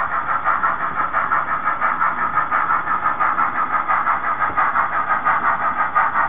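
Steam-locomotive exhaust chuffing in a steady, even beat of about three chuffs a second, from the sound of an HOn3 model narrow-gauge steam locomotive running under steady power.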